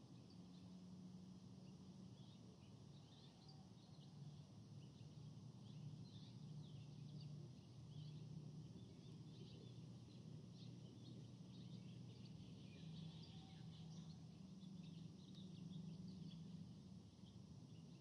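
Faint forest ambience: many small birds giving short high chirps, scattered all through, over a low steady hum.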